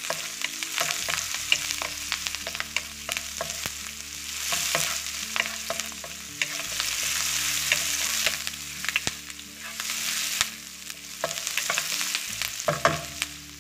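Onions, green chillies and curry leaves sizzling in hot oil in a wok. A wooden spatula stirs them, scraping and clicking against the pan many times. The sizzle swells and fades a couple of times as the food is turned.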